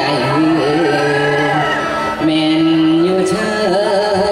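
Isan pong lang folk band playing, with a voice holding long, slightly wavering notes over the instruments.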